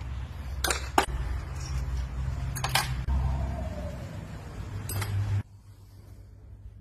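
A few sharp metallic clinks and knocks over a low steady hum; the hum cuts off suddenly about five and a half seconds in.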